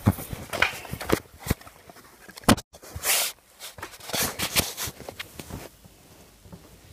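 Handling noise: rustles, taps and knocks, with a brief silent gap near the middle, growing quieter near the end.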